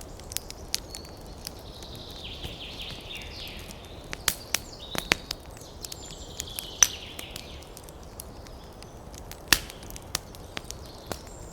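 Wood campfire crackling, with irregular sharp pops over a faint steady hiss. Birds chirp in the background in two stretches, one early and one in the middle.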